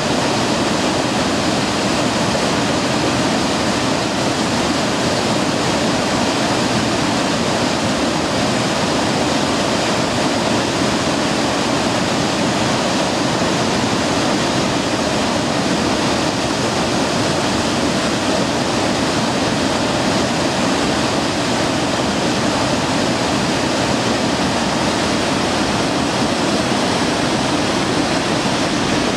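Small waterfall pouring over a rock ledge between boulders: a loud, steady rush of water.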